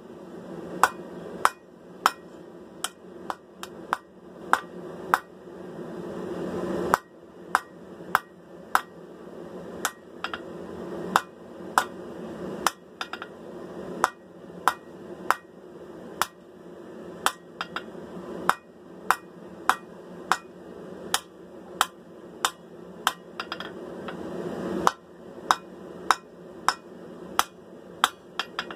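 Hand hammer striking hot steel on an anvil in a steady rhythm, a little over one blow a second, drawing out the point of a sword blade. A steady rush runs underneath.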